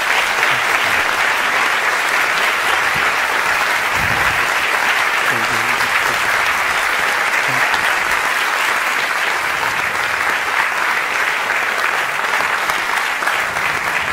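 Audience applauding steadily, a dense even clapping from a seated cinema audience that holds throughout.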